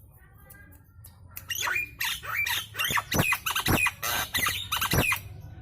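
Nias hill myna calling loudly: a rapid run of harsh squawks and whistles, several sweeping sharply down in pitch, starting about a second in and breaking off just before the end.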